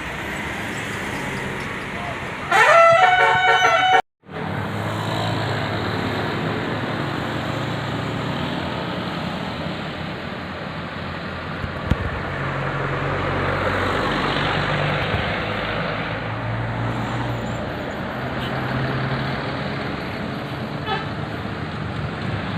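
A bus's basuri telolet musical horn plays a quick run of rising notes for about a second and a half, a couple of seconds in, and cuts off suddenly. After that, steady road traffic noise with a low engine drone.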